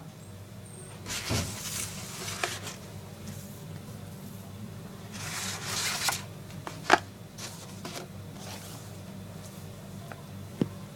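Packaging being handled: two stretches of rustling, with a few sharp clicks and knocks.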